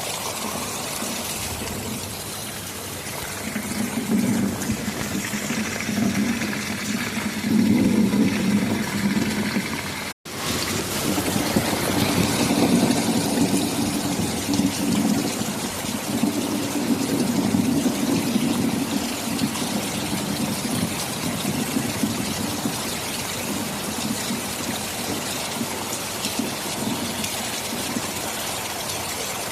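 Rain falling steadily, with long rolls of thunder that swell and fade between about three and twenty seconds in. The sound cuts out for an instant about ten seconds in.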